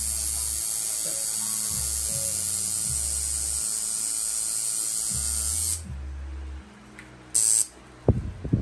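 Electric tattoo machine buzzing steadily, then stopping about six seconds in, with one short burst of buzzing a little later.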